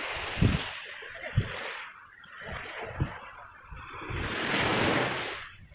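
Wind and surf on an open beach: a steady rushing hiss with low gusts buffeting the microphone, swelling louder about four seconds in before falling away.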